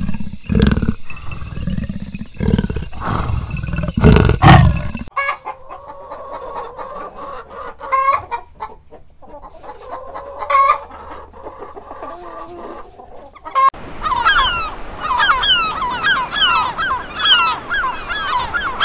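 Deep, rumbling big-cat growls for the first five seconds or so. Then a flock of hens clucking, with two sharper squawks. From about fourteen seconds in, a flock of gulls calling with many overlapping short, falling cries.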